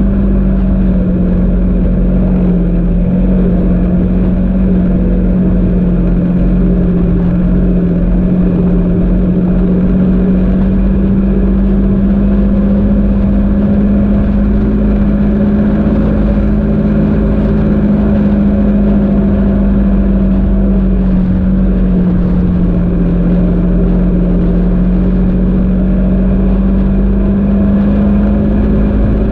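Vehicle engine running at a steady cruise while driving a sandy dirt track: a constant drone whose pitch dips slightly a couple of times, over a steady low rumble.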